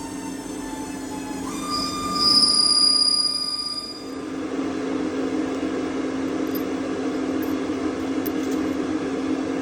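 Cutting tool squealing against stainless steel on a DynaTurn 102 CNC lathe: a high whine that sags slightly in pitch, jumps higher and loudest from about two to four seconds in, then stops, leaving the lathe's steady running hum.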